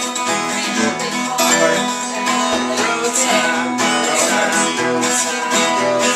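Acoustic guitar music, plucked and strummed, playing steadily.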